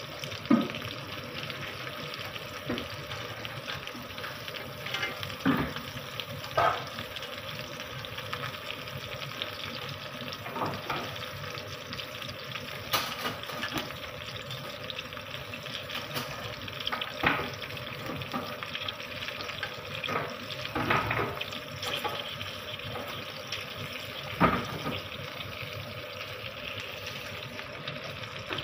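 Stuffed green chillies sizzling steadily in shallow oil in a nonstick frying pan. Metal tongs clink and tap against the pan a handful of times as the chillies are turned.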